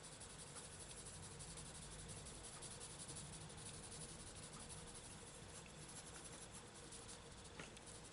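Faint, continuous scratching of a soft wax-based coloured pencil (Prismacolor Premier) shading lightly on paper.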